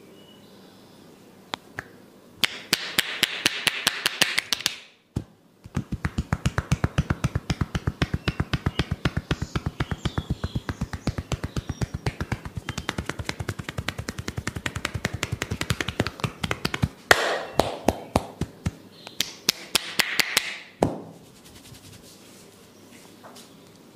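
Masseur's hands doing percussion massage: quick rhythmic slaps and taps on the body at about five or six strokes a second, in several runs with short breaks.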